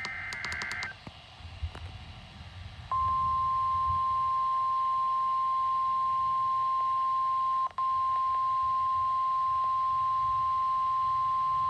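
NOAA Weather Radio emergency alert: the end of a SAME digital header burst, a rapid warbling data chirp, stops about a second in. About two seconds later the loud, steady 1050 Hz warning alarm tone starts. The alarm tone cuts out for an instant about two-thirds of the way through and signals that a warning message follows.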